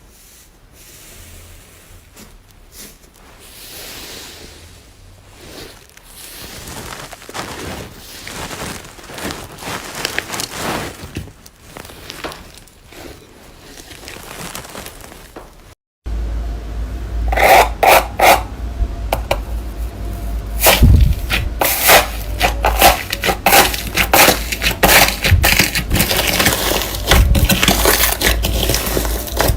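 Slime being worked by hand, giving dense crackling and scraping. About halfway in there is a cut to a much louder clip full of sharp crackles and pops over a low hum.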